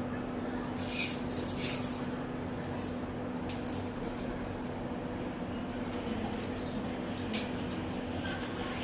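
A steady low hum with several brief rustles and scrapes of things being handled.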